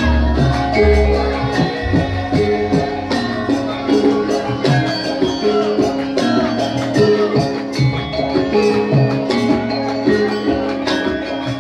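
Live Javanese ensemble music: steady pitched notes over drums and struck percussion, with a heavy low drum pattern in the first two seconds.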